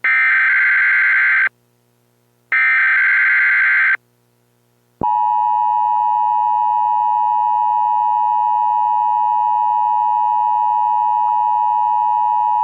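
Emergency Alert System tones: two buzzy electronic data bursts of about a second and a half each, a second apart. These are the SAME header codes. About a second later the steady two-tone EAS attention signal comes in and holds.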